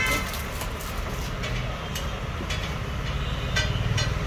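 Plastic wrap crinkling and a cardboard phone box being handled, with a few short crackles, more of them near the end, over a steady low rumble.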